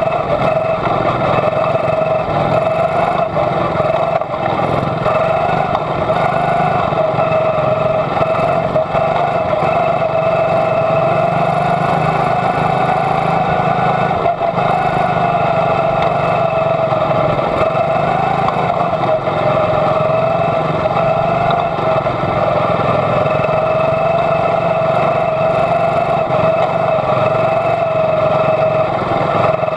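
Quarter midget's single-cylinder Honda racing engine running hard at high revs. Its pitch dips and rises a little every few seconds as the car goes through the turns.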